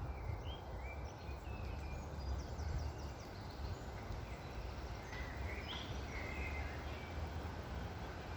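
Wind blowing with a steady low rumble, with small birds chirping and twittering here and there over it, including a quick run of high, falling notes about three seconds in.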